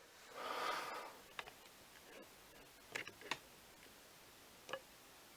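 Small parts being handled on a work surface: a brief rustle, then a few light, sharp clicks and taps spaced a second or more apart.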